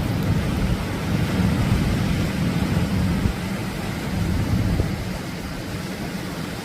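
Atlantic Ocean waves breaking and rushing on the shore: a steady, deep rush that eases a little after about five seconds.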